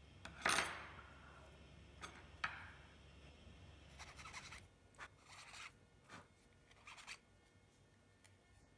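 A few short scratching, scraping strokes of a small hand tool, such as a needle file, on a small model-airplane part, the loudest about half a second in, with lighter handling scrapes after it.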